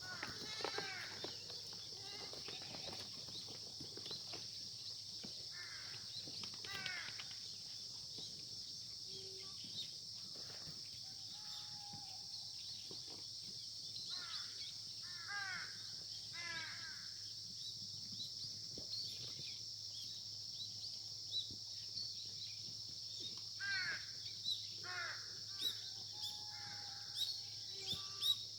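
Crows cawing in short series of two or three calls, over a steady high-pitched insect chorus and a low hum.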